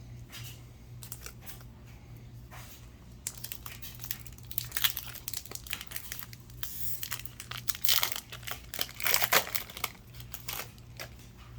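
A trading-card booster pack's wrapper crinkling and tearing as it is opened by hand, in irregular crackles that build after a few seconds and are loudest about eight and nine seconds in. A steady low hum runs underneath.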